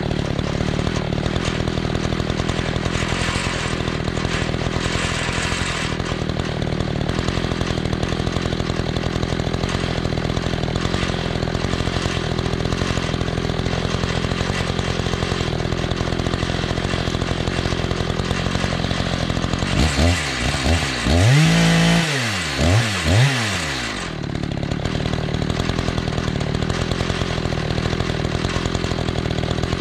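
Two-stroke chainsaw running steadily while cutting lengthwise through a log in an Alaskan chainsaw mill. About twenty seconds in, the engine note rises and falls several times, then settles back into the steady cut.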